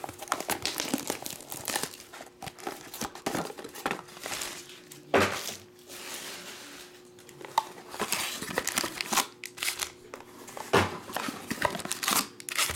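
Plastic shrink-wrap on trading-card boxes and booster-pack bundles crinkling and tearing as it is handled and unwrapped, with a few louder sharp crackles.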